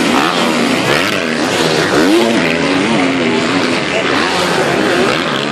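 Several motocross bikes' engines revving hard at once, their pitch rising and falling over and over as the riders throttle on and off over the jumps.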